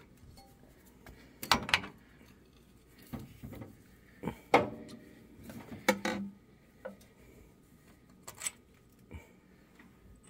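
Scattered light metallic clinks and scrapes of small hand tools being handled at a bolt hole in an engine block, with a few short knocks spread through.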